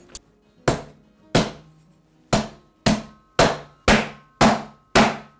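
Bottom of a metal pan pounding venison leg steaks flat between layers of cling film on a chopping board: about eight heavy strikes, two spaced out at first, then about two a second, each followed by a short faint ring.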